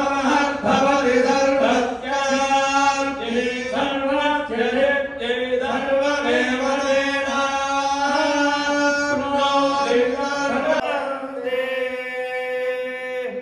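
Male voices chanting Hindu mantras in a steady, continuous recitation during an abhishekam, the ritual bathing of the deity. About eleven seconds in the chant gives way to one long held note.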